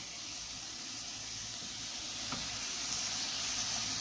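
Amla pieces and melting jaggery sizzling gently in a nonstick pan over a low gas flame while being stirred with a silicone spatula; a steady hiss that slowly grows louder as the jaggery melts and releases its liquid.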